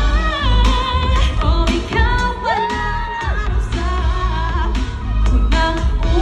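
Live P-pop song performed on stage: female group vocals singing over a pop backing track with a heavy, steady bass beat and drums, played loud through the stage sound system.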